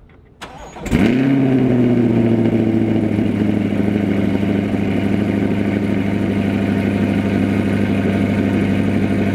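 Chevrolet C8 Corvette's 6.2-litre LT2 V8 starting for the first time on Kooks long-tube headers and green cats: a short crank, then it fires about a second in with a rev flare that drops in pitch over a couple of seconds and settles into a steady, loud idle.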